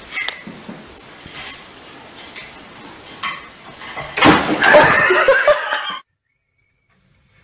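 A few light knocks, then a sudden loud clatter about four seconds in, as of things knocked over on a table. A loud pitched cry rising and falling for about a second and a half follows at once, and the sound cuts off abruptly.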